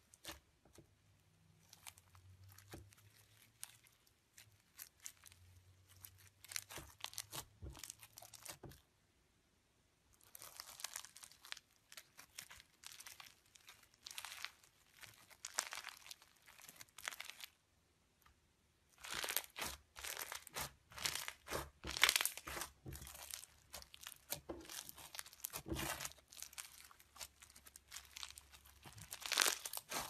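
Foam-bead slime (floam) being squished and pressed with the fingers: dense runs of small crackles and pops from the beads, with two brief pauses, about a third and about two thirds of the way through.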